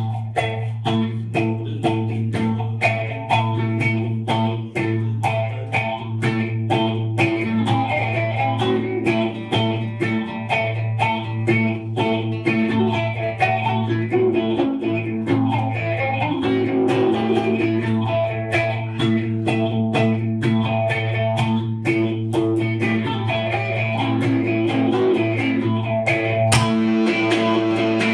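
Live band instrumental: acoustic and electric guitars picked in a steady, even rhythm over a held low note.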